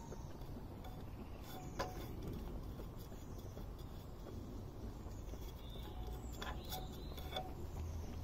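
Quiet outdoor background: a low steady rumble with a few faint clicks, one about two seconds in and a few more near the end.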